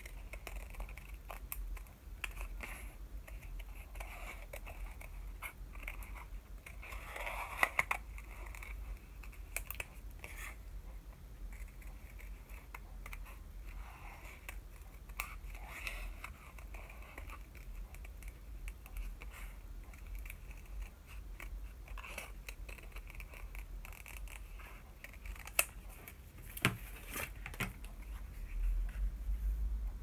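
Small scissors cutting around a translucent watercolor sticker sheet: a run of short, quiet snips, with a few sharper clicks and taps.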